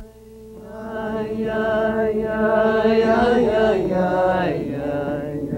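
A slow chant sung in long held notes, swelling in over about the first second.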